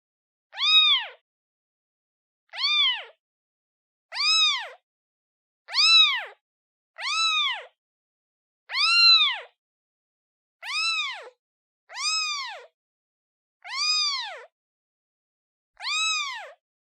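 Newborn kitten meowing for its mother: about ten high-pitched meows, each rising then falling, one every second or two with silence between.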